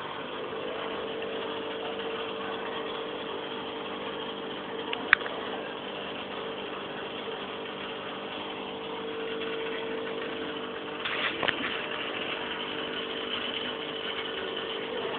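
Aquarium pump humming steadily under a hiss of bubbling water. A sharp click about five seconds in and a few knocks around eleven seconds.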